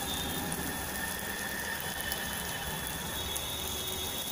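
Oil sizzling steadily in a pan as spice-coated boiled eggs fry in it.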